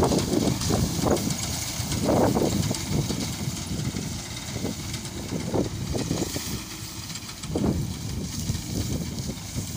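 Tractor engine running steadily as its front-mounted reaper cuts wheat, overlaid by irregular crackling rustles of dry wheat straw being gathered and lifted by hand close by.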